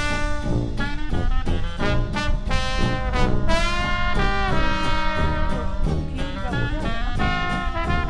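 Background jazz music led by brass horns, with held notes over a steady beat.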